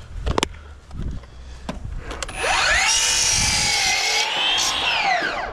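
An electric power saw starts a couple of seconds in: its motor whine rises, holds for about three seconds with a slight sag in pitch as it cuts wood, then winds down near the end. A few light knocks come before it.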